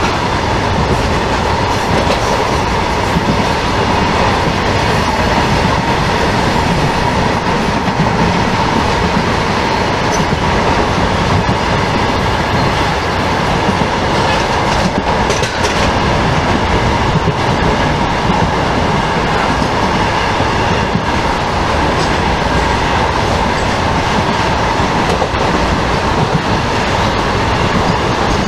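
Passenger coach of the 14707 Bikaner–Dadar Ranakpur Special running at speed: steady, loud rumble and rattle of the wheels on the track, unbroken throughout.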